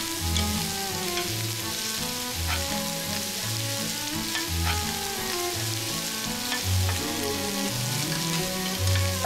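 Pieces of eel sizzling and frying on a hot griddle pan over a portable burner, a steady hiss throughout, over background music with a repeating bass line.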